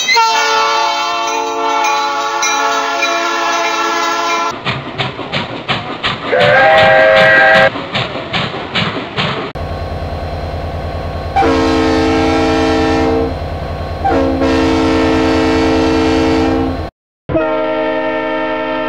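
Train horns sounding in a series of long blasts, each a held chord of several notes, spliced together from separate recordings. Between about five and nine seconds in there is a run of rail clickety-clack with a short horn note. Under the two horn blasts in the second half runs a steady low engine rumble.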